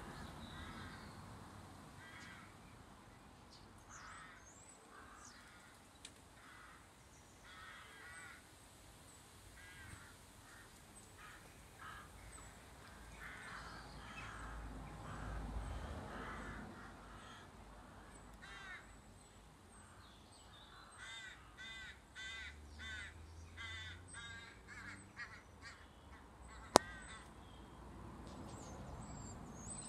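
A large flock of common starlings calling overhead: a continuous chatter of many short calls that grows busier in the last third. A single sharp click stands out near the end.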